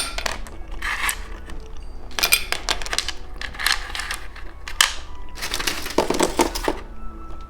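Close-up crackling and crunching from candy and its packaging, in irregular bursts of sharp clicks about a second apart.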